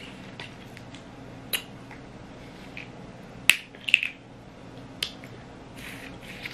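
Snow crab leg shell being cracked and pulled apart by hand: a few sharp snaps, the loudest about three and a half seconds in, with soft eating sounds between.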